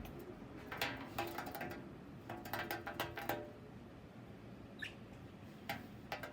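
Pet parrots making faint clicking and soft squeaky chatter, with one short chirp about five seconds in.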